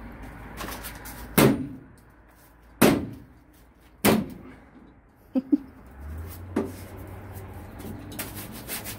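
Sharp metallic knocks on a pickup's tailgate: about five separate thumps, one a quick double, as the tailgate's sheet-metal inner panel is pushed and knocked to bring a step bracket's bolt holes into line.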